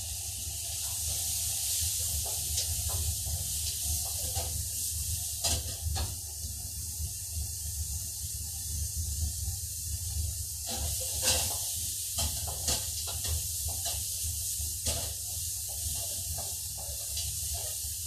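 Chicken frying in a pan, giving a steady high sizzling hiss. Scattered clicks and scrapes of a utensil against the pan, over a low steady hum.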